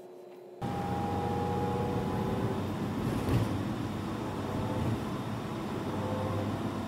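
Steady engine and road noise heard from inside a moving city bus, cutting in abruptly about half a second in after faint room tone.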